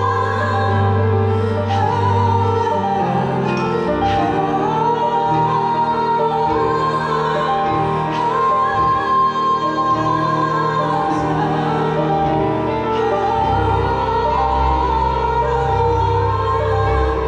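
Symphony orchestra playing live: a high melody held in long notes over sustained low bass notes that shift a few times. It is heard from the audience seats of a large hall.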